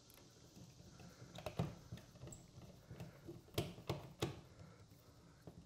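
Hand screwdriver driving a screw into the plastic wall plate of an in-wall power relocation kit: a run of irregular light clicks and taps, the sharpest of them a little past halfway.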